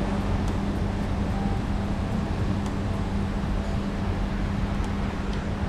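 A machine running steadily: a constant low hum under an even noise, with a few faint ticks.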